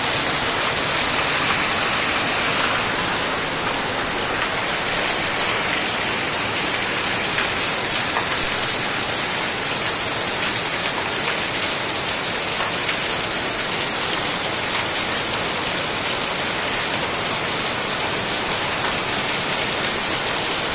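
Heavy rain pouring down steadily onto trees and foliage, an even, continuous hiss.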